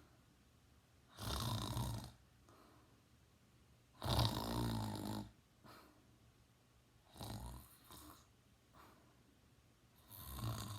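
A teenage boy snoring: four loud snores about three seconds apart, with soft breaths between. The one about four seconds in is the longest and loudest, with a rattle.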